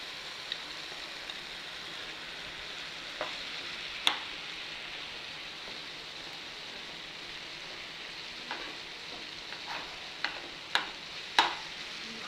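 Onion-tomato masala sizzling steadily in a frying pan as crumbled paneer is tipped in and stirred. Sharp knocks of the utensils against the pan come now and then, one about four seconds in and several close together near the end.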